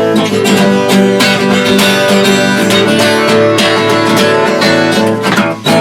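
Acoustic guitar strummed in a steady rhythm: an instrumental passage between sung verses of a country-folk song.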